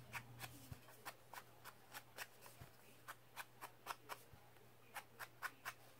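Faint, quick light taps of an ink sponge dabbed repeatedly onto cardstock, about three or four a second, with a brief pause past the middle.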